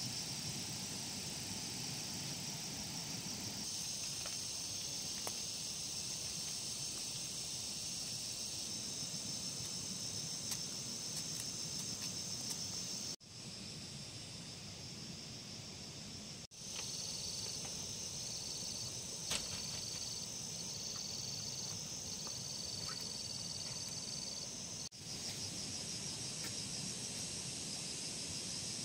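Steady chorus of insects chirring high and continuous, with a low ambient hum beneath. It drops out abruptly three times. For several seconds past the middle, a second, pulsing insect tone joins in just below the main chorus.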